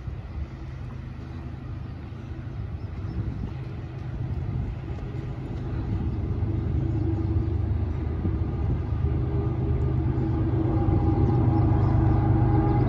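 Approaching CSX freight train's diesel locomotives: a low rumble with a steady engine drone that grows louder throughout.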